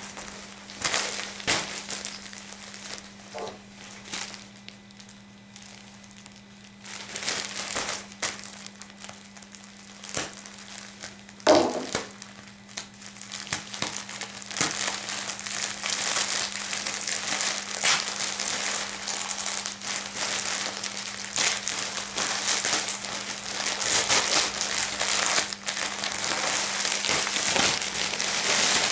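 Plastic mailer bag crinkling and rustling as it is handled and worked open: scattered rustles at first, then dense, continuous crinkling from about halfway. One louder thump a little before the middle.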